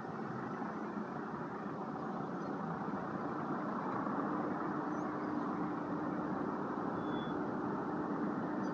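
Steady rush of wind and road noise from riding a Zero SR/F electric motorcycle. A faint steady hum joins about four seconds in.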